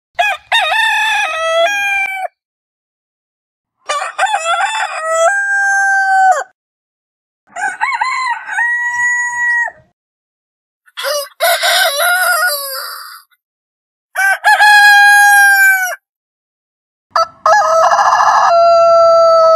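Roosters crowing: six separate cock-a-doodle-doo calls, each about two seconds long and ending on a long held note, with dead silence between them. The last crow is still going at the end.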